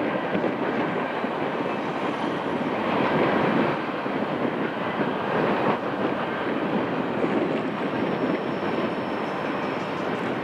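Freight cars of a long train rolling across a steel trestle bridge: a steady noise of wheels on rails that swells a little now and then.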